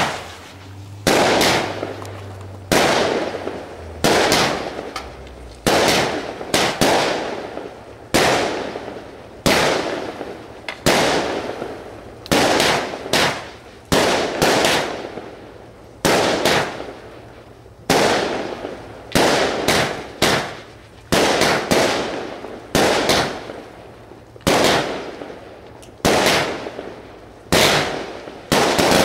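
A multi-shot firework firing shot after shot, about one sharp report every second or so, some in quick pairs, each dying away over about a second.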